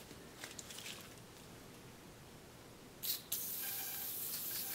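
Aerosol can of oil spraying onto a blued revolver frame: a short spurt about three seconds in, then a steady hiss. The oil is going over freshly cold-blued steel to cure the finish.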